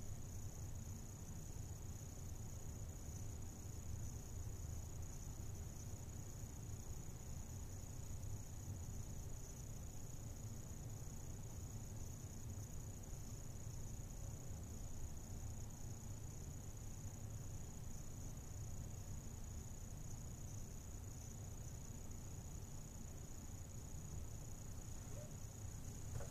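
Steady background noise: a low rumble with a constant high-pitched whine over it, unchanging throughout, with no distinct events.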